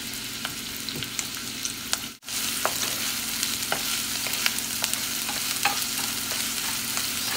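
Diced red onion sizzling in hot oil in a nonstick frying pan, stirred with a wooden spatula, a steady hiss with scattered small crackles. The sound breaks off for an instant about two seconds in.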